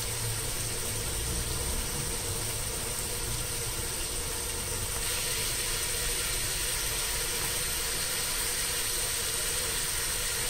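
Kebabs and masala sizzling steadily in a pot as they are fried down (bhuna), with a low steady hum underneath.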